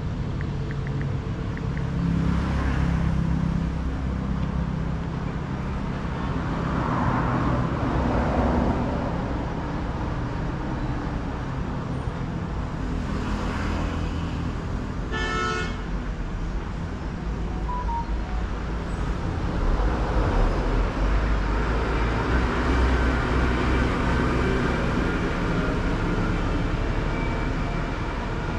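Road traffic passing close by: a steady rumble that swells as vehicles go past in several waves, with one short vehicle horn toot about halfway through.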